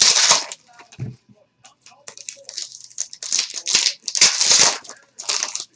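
Trading-card pack wrappers being torn open and crinkled by hand in irregular bursts of crackly rustling, loudest right at the start and again about four seconds in. A dull knock about a second in.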